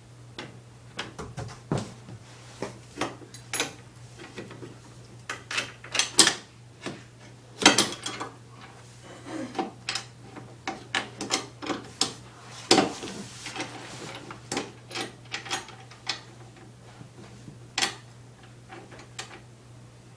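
Irregular clicks, clacks and rattles of a lawnmower's handle being fitted into place on the mower, with louder knocks about 6, 8 and 13 seconds in.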